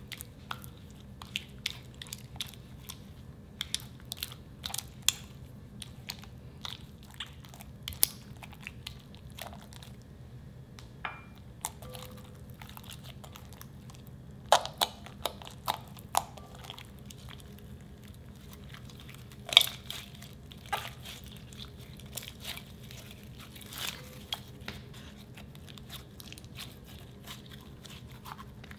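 Clear slime being stirred with a silicone spatula in a glass bowl, then squeezed and kneaded by hand: scattered sticky clicks and pops, with one louder pop about two-thirds of the way through.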